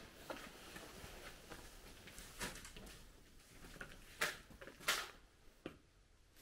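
Faint, scattered clicks and knocks in a quiet, echoey interior, with a few sharper ones about two and a half, four and five seconds in.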